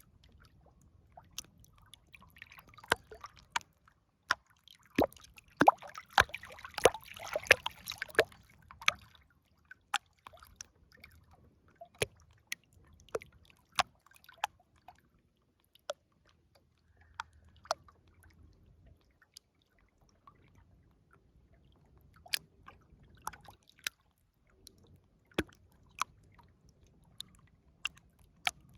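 River water dripping and splashing in irregular small plops, busier for a few seconds about six seconds in.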